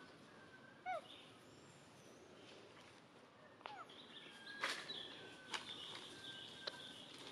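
Faint outdoor ambience with a few short, falling animal chirps. A thin, steady high tone sets in about halfway through, and a few sharp clicks follow.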